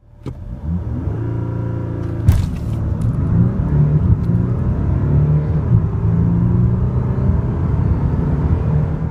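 Audi A6 3.0 TDI's V6 diesel engine at full-throttle launch-control acceleration from standstill, heard inside the cabin. The engine note climbs in pitch in steps through the gears, with a sharp thump about two seconds in as it shifts into second.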